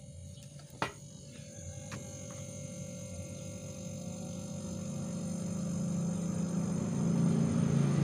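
Refrigerator compressor running with a steady low hum that grows louder, a single click near the start: the compressor is starting and running again now that its dead PTC starter relay has been replaced.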